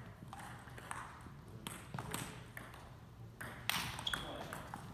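Table tennis rally: the ball clicking back and forth off the table and the paddles, a sharp tick every half second or so.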